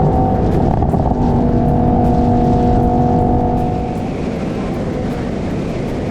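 A supercar engine running hard at speed under heavy wind and road noise. Its note rises right at the start, holds steady, then eases off about four seconds in.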